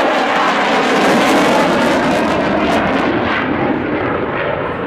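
Jet noise from an F/A-18E/F Super Hornet's twin turbofan engines as the fighter flies its turn-to-tail-stand pass: a loud, steady rush, its hiss thinning somewhat about three seconds in.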